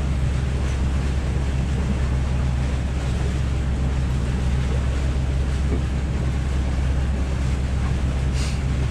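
Sailboat under way: a steady low hum under wind and water noise.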